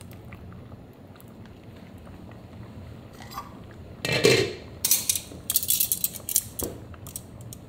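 Metal kitchen utensils clanking and clinking against a cooking pot: one loud clank about four seconds in, then a quick run of sharp clinks, over a faint low hum.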